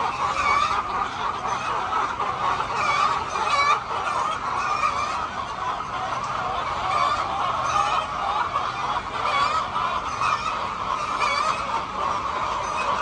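A large flock of chickens clucking and calling all at once, many overlapping voices making a steady, dense din with frequent single calls standing out above it.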